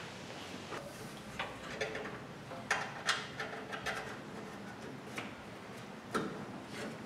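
Scattered light clicks and knocks, irregular and spaced out, as a car's fan shroud is handled and worked into place against the radiator and its fasteners are fitted.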